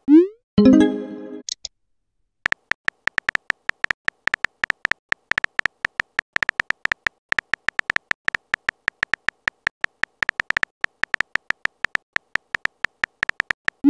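Texting-app keyboard typing sounds: rapid, even clicks, several a second, as a message is typed letter by letter. Right at the start a quick rising swoop and a short chime mark a message being sent, then there is a pause of about a second before the typing clicks begin.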